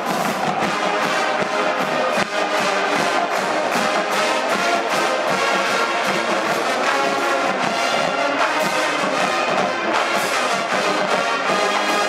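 Marching band playing: a full brass section sounding sustained chords and melody over a steady drum beat.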